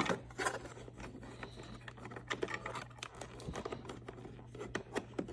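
Irregular small plastic clicks and scrapes of hands handling a JBL EON ONE Compact speaker as its battery pack is reseated, with a steady low hum underneath.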